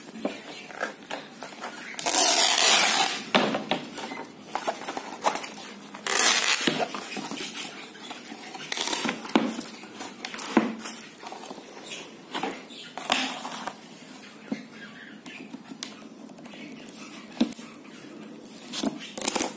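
Painted canvas being cut and ripped off its frame: a long tearing rip about two seconds in and a shorter one about six seconds in, with scraping, clicks and knocks from the blade and hands working at the frame in between.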